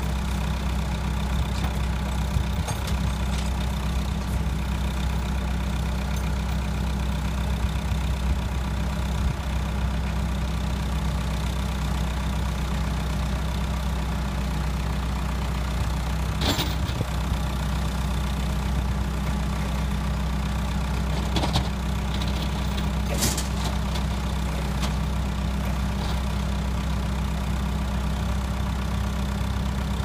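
Ingersoll-Rand RT-708G rough-terrain forklift's engine running at a steady idle as the forklift creeps down a tow truck's tilted bed with a skid steer on its forks. Two brief clanks come in the second half.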